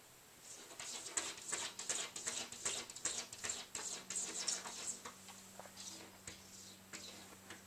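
A cat's paws batting against a sliding glass door: a rapid flurry of taps and thumps on the glass that thins out after about five seconds.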